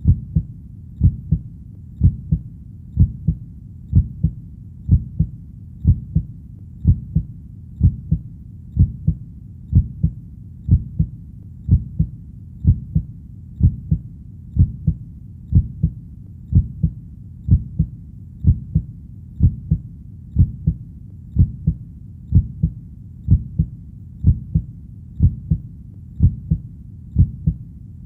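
Heartbeat: a steady low double thump, lub-dub, a little under once a second (about 60 beats a minute), even and unchanging throughout.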